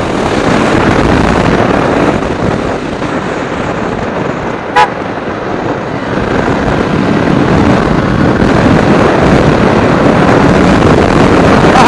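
Wind rushing over an external microphone on a moving motorcycle, with road and engine rumble beneath it: heavy wind noise still getting through the furry dead-cat windscreen. A brief horn toot sounds about five seconds in.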